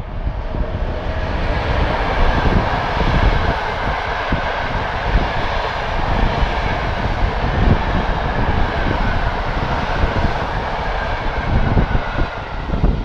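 Electric-locomotive-hauled passenger train passing at speed: a steady rush and rumble of wheels on rail as the carriages go by, easing off near the end as the last coach passes. Wind buffets the microphone throughout.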